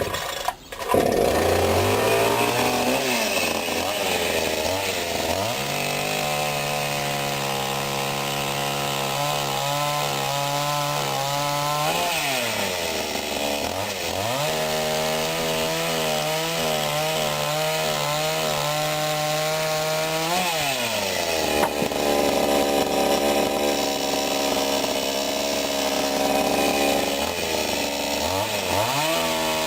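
Sadko GCS 510E two-stroke petrol chainsaw sawing firewood. The engine holds at high revs through long cuts, drops back to idle between them, once for several seconds, and revs up again near the end.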